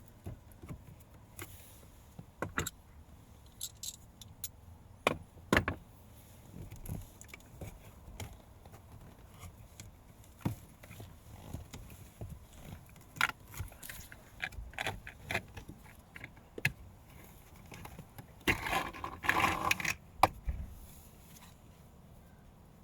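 Clicks and knocks of the plastic cabin air filter housing being handled. Near the end, for about two seconds, a dense scraping rustle as the old cabin air filter is worked out of its slot.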